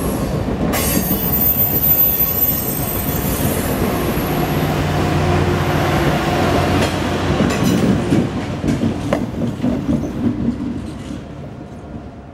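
Passenger train cars rolling past at a grade crossing: a steady rumble of steel wheels on rail, with a thin high wheel squeal in the first few seconds and a run of sharp clicks as wheels cross rail joints a little past the middle. The sound dies away over the last couple of seconds.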